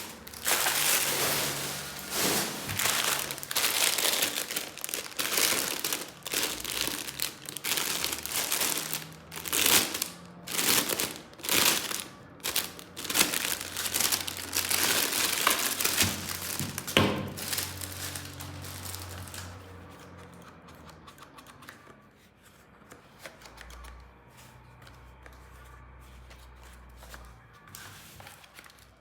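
Packaging crinkling and rustling in repeated bursts, then dying down about two-thirds of the way through to faint light clicks and taps.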